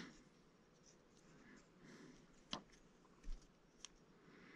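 Faint scratching of a metal sculpting tool working Monster Clay onto a thin brass rod, with a couple of small sharp clicks and one dull knock in the second half.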